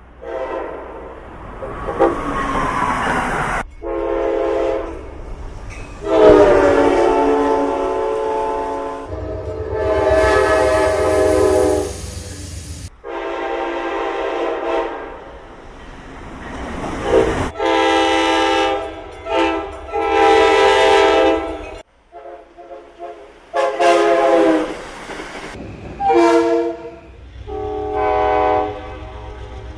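Train horns sounding one blast after another, short and long, from several different trains, each breaking off abruptly as the next begins, with the low rumble of a train under some of them. About two seconds in, one horn falls in pitch as it goes by.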